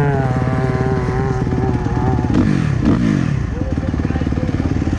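A dirt bike's single-cylinder four-stroke engine running close by, with a fast, even pulse; a little past the middle the pitch falls in two short glides as the revs drop, then it settles back to a steady beat.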